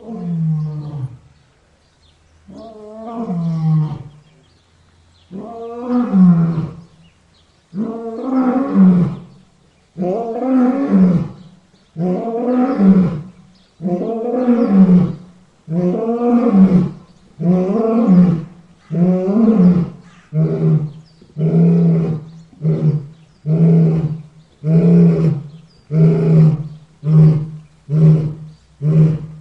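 Lion roaring in a full bout: deep pitched calls, the first few long and about two seconds apart, then growing shorter and quicker, about one a second, toward the end.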